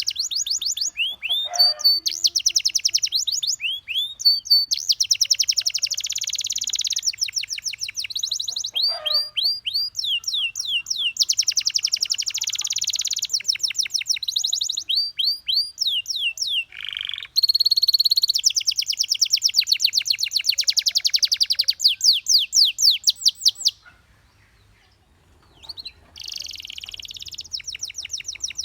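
Domestic canary singing: fast trills of rapidly repeated notes alternating with rising whistled notes, in phrases broken by short pauses, with a gap of about two seconds near the end.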